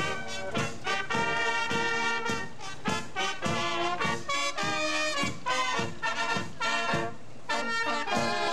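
Marching brass band playing a march: trumpets and flugelhorns carry the tune over tubas marking a steady beat, about two low notes a second.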